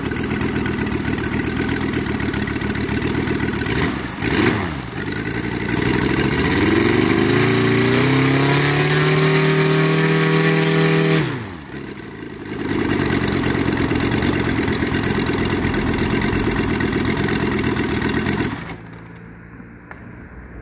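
Model-aircraft petrol radial engine running on a test stand without a fuel pump. It idles, is blipped briefly about 4 seconds in, then is throttled up with a rising pitch to high revs. It drops back to idle suddenly about 11 seconds in and is shut off near the end.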